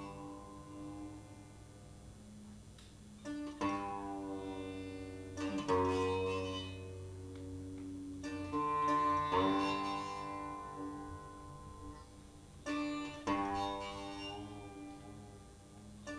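Sitar playing a slow, unmetered alap with no tabla: single plucked strokes a second or several apart, each left ringing with its sympathetic strings, some notes bending in pitch.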